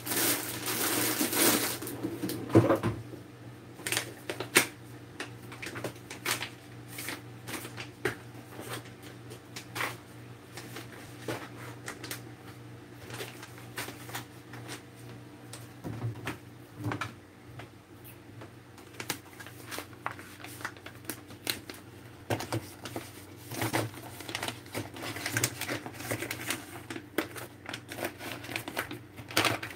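Groceries being unpacked and put away: a rustle in the first couple of seconds, then scattered clicks and knocks of packages being handled and set down, over a steady low hum.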